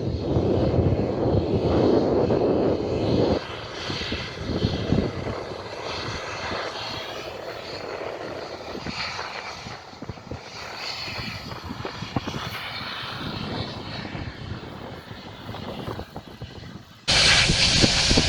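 Boeing 777-200ER jet airliner's engines: a loud rumble for about the first three seconds, then a fainter steady run with a high whine. Near the end a loud rush of wind noise on the microphone cuts in abruptly.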